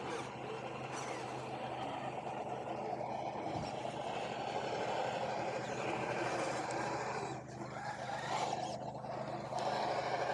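Electric motor and geared drivetrain of a Carisma SCA-1E Range Rover RC scale crawler whining steadily as it crawls over rough trail ground, heard close up from a camera on its bonnet. The sound eases briefly about three-quarters of the way through.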